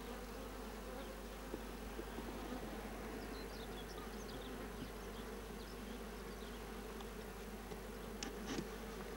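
Honeybees buzzing steadily in a dense hum from an opened hive. Two sharp clicks near the end.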